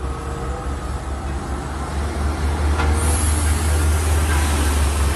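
Heavy-haul truck's diesel engine running with a steady low rumble, amid road noise, as it tows a low-loader trailer carrying a giant mining dump truck.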